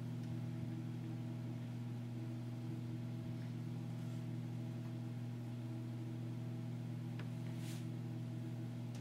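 Steady low electrical hum over a faint hiss, with a soft brief rustle about four seconds in and another near the end.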